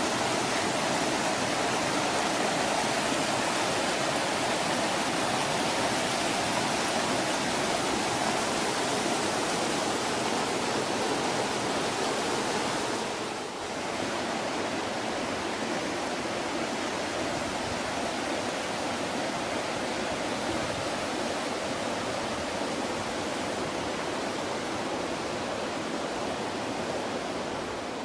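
Loud mountain creek cascading over waterfalls: a steady rush of water, with a brief dip in level about halfway through.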